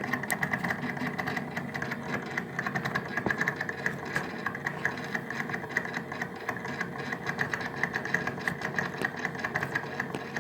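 Daewoo refrigerator's cooling-fan motor running with a steady, fast rattle and buzz. The motor is worn out and has vibrated so hard that its fan blades have fallen off.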